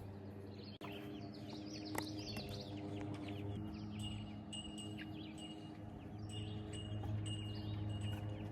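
Birds chirping: many short, quick, falling chirps and repeated high peeps, over a steady low hum.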